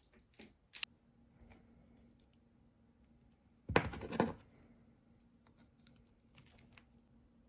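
Sharp clicks and snaps of an automatic wire stripper working on a mains cord's wires. A faint steady hum follows, then a brief scrape of hand-tool handling about four seconds in, the loudest sound.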